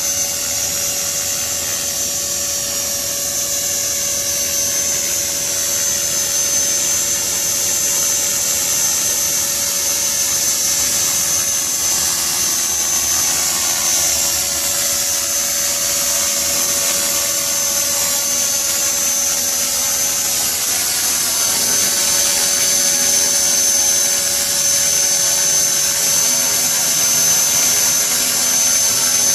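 CopterX 450 electric RC helicopter flying, its brushless motor, gears and rotor blades making a steady high-pitched whine over a lower hum. The pitch glides slowly up and down as it manoeuvres, and it grows louder in the second half as it comes close.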